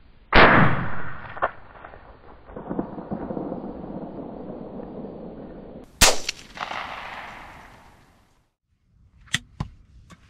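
A .410 single-shot shotgun fires, a sharp blast about a third of a second in that rolls away in an echo, and a second blast just after six seconds in. A few sharp clicks follow near the end.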